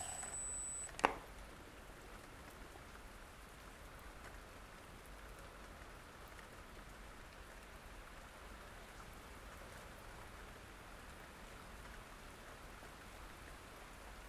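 A cordless drill-driver whirs driving a screw into a wooden casting pattern and stops just under a second in, followed by a sharp click. After that comes a faint, steady, fine pattering hiss of parting powder sprinkled from a squeeze bottle onto casting sand.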